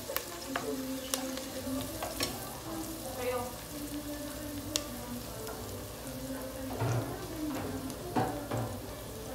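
Garlic, ginger and onions sizzling in hot oil in a stainless steel pot, as they are being browned, with a few sharp clicks now and then.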